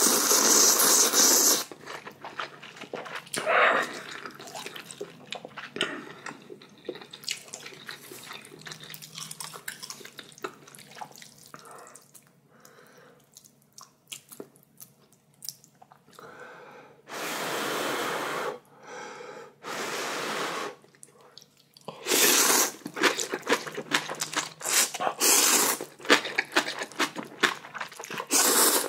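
A person eating spicy ramyeon: loud, noisy slurps of noodles in long pulls, with chewing between them. The eating goes quiet in the middle, then the slurps come thick and fast toward the end.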